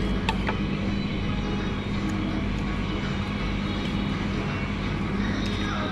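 Steady low mechanical hum with a constant drone throughout, and a few short clicks just after the start.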